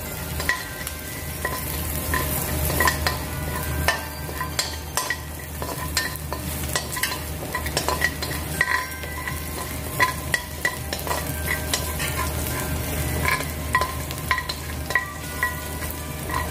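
Chopped garlic sizzling as it sautés in rendered bacon fat in a stainless steel frying pan, going golden brown. A metal spoon stirs it, clicking and scraping against the pan many times with brief metallic rings.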